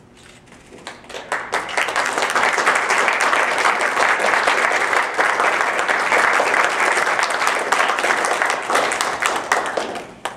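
Audience applauding: a few scattered claps build within a couple of seconds into steady, full applause that fades out near the end.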